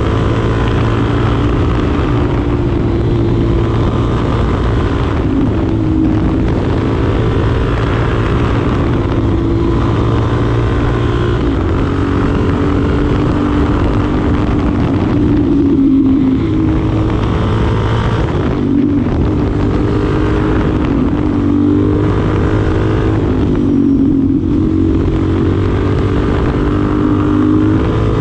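The single-cylinder engine of a 2025 Suzuki DR-Z4SM supermoto running steadily while riding. Its pitch dips and climbs again about six times as the throttle or gear changes.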